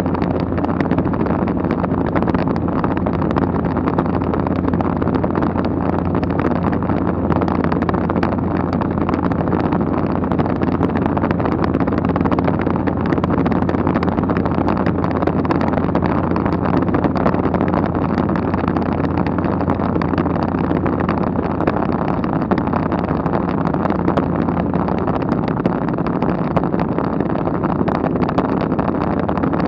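Steady, unchanging drone of a low-flying light aircraft's engine heard from inside the cabin, with a strong low hum.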